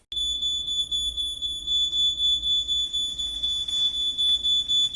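Smoke alarm going off: a loud, shrill, high-pitched tone that starts suddenly right at the beginning and holds steady throughout.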